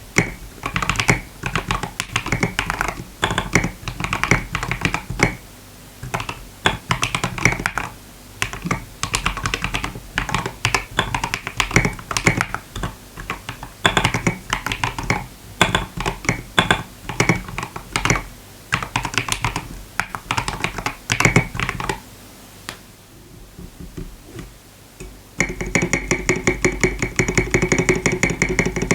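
Typing on a TM680 65% mechanical keyboard: a fast, steady run of keystroke clacks that stops about three quarters of the way through. Near the end, background music comes in.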